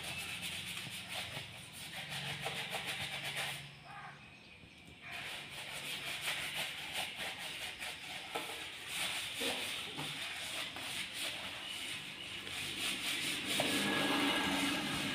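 Repeated hand-rubbing strokes as a motorcycle's greasy front fork leg is scrubbed clean, with a short pause about four seconds in.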